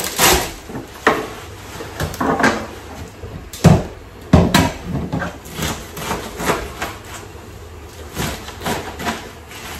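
Kitchen knife chopping silverbeet (Swiss chard) stems and leaves on a plastic cutting board: irregular knocks of the blade on the board, the two loudest a little under a second apart near the middle.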